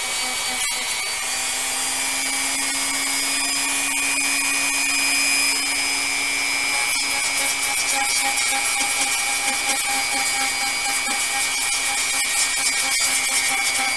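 Handheld rotary tool running at a steady high speed, with a constant whine, as its bit grinds down a small plastic model part.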